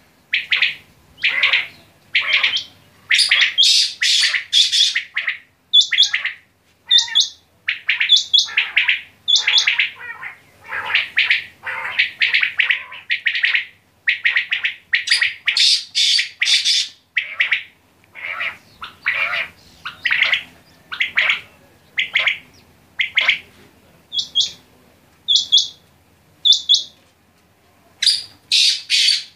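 Several caged common quail (batair) calling: sharp, repeated calls overlapping with only brief gaps, with short, higher-pitched notes among them.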